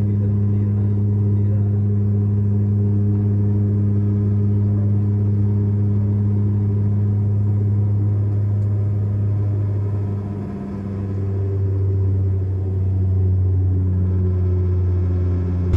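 Turboprop airliner's engines and propellers droning steadily in flight, heard inside the cabin: a loud low hum with a strong pitched note. About ten seconds in the drone dips briefly and its pitch shifts slightly, then it steadies again.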